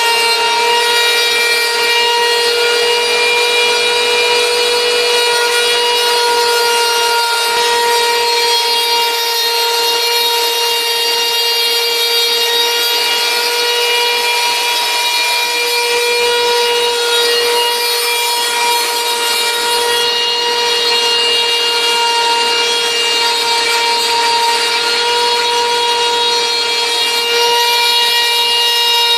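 Wood router used as the spindle of a homebuilt CNC router, running at high speed and cutting into a fibreboard panel: a steady high whine with many overtones over a rough cutting hiss.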